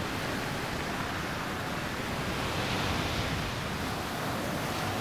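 Surf breaking and churning over a rocky shore, a steady rush of white water that swells a little about midway.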